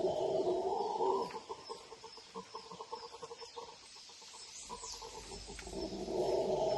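Chickens clucking: a run of pulsing clucks in the first second or so, fading, then building again near the end, with small birds chirping faintly over it.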